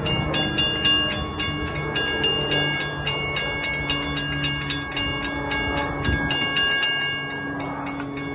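A railway warning bell ringing rapidly and evenly, about four strikes a second, over the low hum of an approaching NJ Transit train; the ringing stops near the end.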